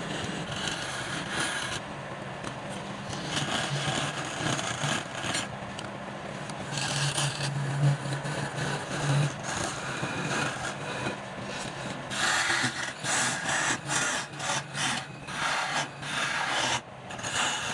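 Tool scraping and rasping against wood turning on a lathe over a low motor hum, in short, uneven strokes that get choppier near the end.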